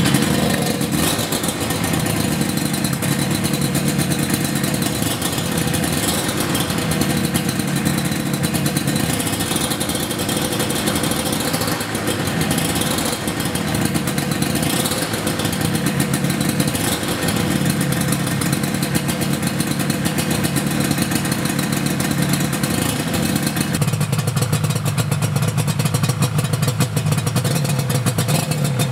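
Yamaha R1Z 250's two-stroke parallel-twin engine running just after a top-end rebuild of its seized engine, its throttle blipped up and down again and again. It settles to steadier running for the last few seconds.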